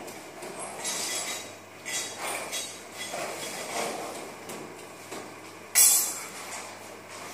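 Motorised ceiling projector trolley rolling along its overhead rail: an uneven mechanical running and rattling, with one sharp clack near the end.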